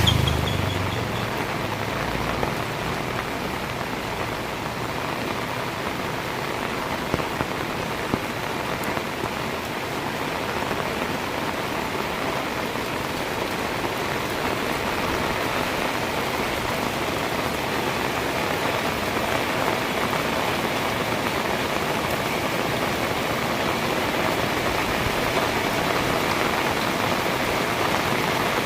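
Heavy rain falling steadily, a dense even hiss of drops hitting the ground and surfaces, with a few sharper drop ticks.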